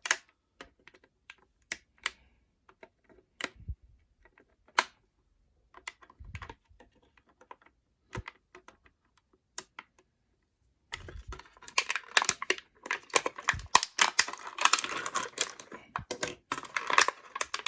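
Plastic toy packaging being handled and pulled off: scattered sharp clicks and taps at first, then from about eleven seconds in a dense run of crackling, crinkling plastic.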